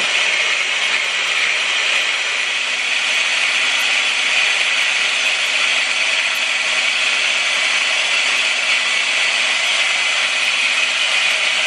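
Agaro Marvel hand blender's motor running steadily in its chopper bowl attachment, chopping onions and tomatoes down to a fine pulp.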